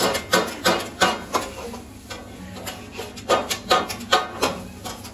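Two long metal spatulas striking a large flat griddle as noodles are tossed and chopped, a quick run of clanks about three a second, a pause of about a second and a half around two seconds in, then another run.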